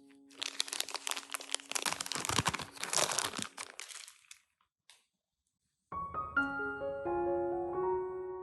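Crunching, crinkling noise of food or packaging being handled, lasting about four seconds. After a short silence, gentle piano music comes in.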